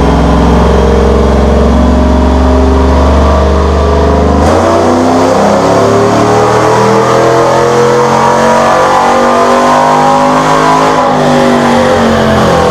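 2014 Chevrolet Silverado's 5.3-litre V8, fitted with a Brian Tooley stage 1 cam, long-tube headers and a catless Y-pipe, running loud on a chassis dyno. It holds a steady low speed for about four seconds, then goes to full throttle and revs up steadily in a power pull, with the revs falling back near the end.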